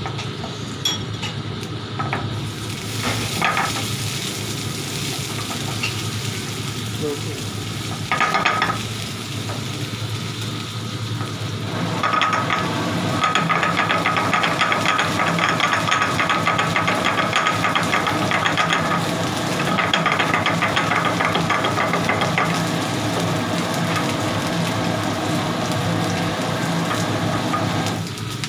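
Chopped garlic frying in oil in a nonstick pan, sizzling while a wooden spatula stirs and scrapes it around the pan. The sizzling and scraping turn louder and busier about halfway through.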